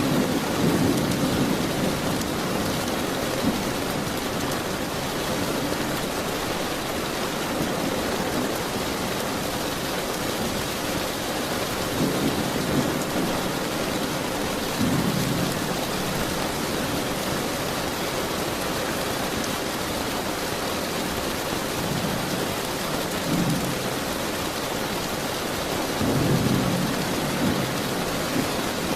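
Steady rain with thunder rumbling low several times: at the start, twice around the middle and again near the end.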